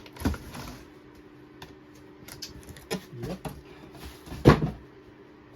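Cardboard model-kit boxes being handled and unpacked: scattered light taps and rustles, with a sharp knock about four and a half seconds in.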